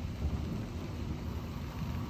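Thunderstorm: a steady low rumble of rolling thunder with rain falling.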